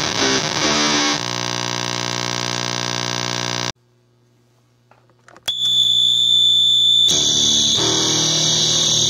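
Electric guitar through a Basic Audio Pendulum pedal in oscillation mode: blown-out, lo-fi fuzz riffing settles into a held low drone, which cuts off abruptly. After a brief near-silent gap with faint hum, a harsh, steady high-pitched screech starts, and gated, lo-fi overdriven guitar riffs come in under it.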